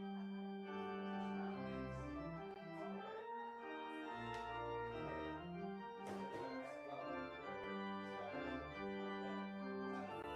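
Church organ playing the postlude after the dismissal: sustained chords over a moving bass line, changing every half second or so.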